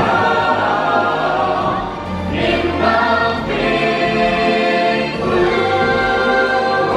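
A song from a stage musical: several voices singing together in harmony over instrumental accompaniment.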